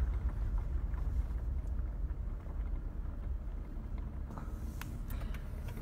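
Steady low rumble of a car driving slowly: engine and road noise, with a few faint clicks in the second half.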